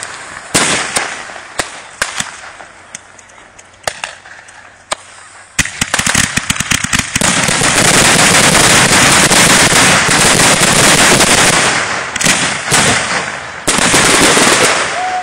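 Consumer 1.4G aerial fireworks going off: scattered sharp bangs, then from about six seconds in a rapid string of cracks that becomes a dense, continuous crackle for several seconds, followed by a few more bangs and another loud crackling stretch near the end.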